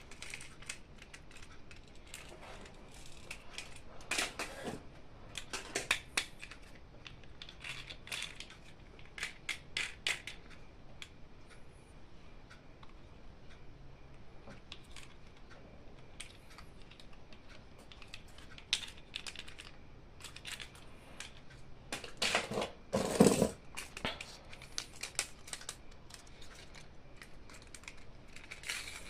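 Hands unboxing toys: scattered sharp clicks, taps and rustles of plastic packaging and toy parts being handled, with a louder, longer rustle a little past the middle.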